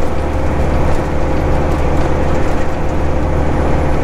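Steady drone inside a semi-truck's cab cruising at highway speed: diesel engine and road noise with a constant low hum and no change in pitch.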